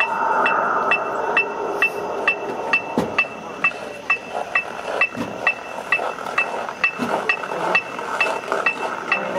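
A marching band's percussion keeping time with a steady woodblock-like tick, about two and a third beats a second, over a soft sustained sound. A few louder knocks come about three, five and seven seconds in.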